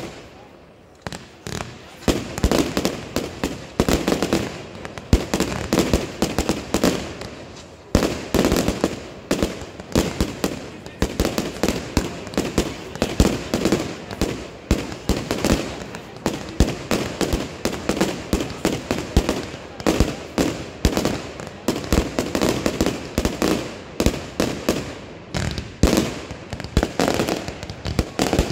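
Consumer firework batteries firing: a rapid, near-continuous run of launch thumps, aerial bangs and crackle, sparser for the first couple of seconds and then several reports a second.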